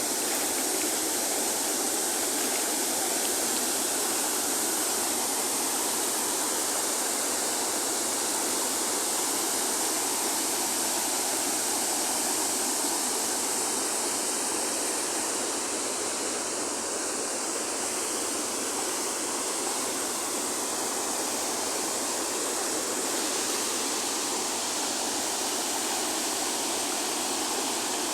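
Waterfall on the Islamapa River: falling water rushing steadily and evenly, with little deep rumble.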